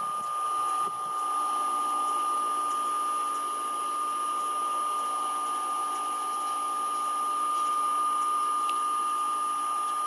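A steady machine whine, one high tone held without change, with fainter steady tones and a light hiss beneath.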